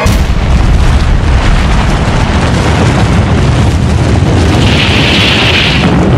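Atomic bomb explosion sound effect: a sudden blast, then a continuous deep rumble, with a rushing hiss swelling about five seconds in.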